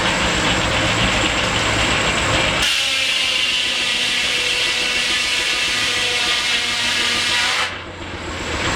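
Sawmill running: a steady engine rumble, then, about a third of the way in, a high hiss with a steady whine of the saw comes in. Near the end the sound drops away suddenly for a moment before returning.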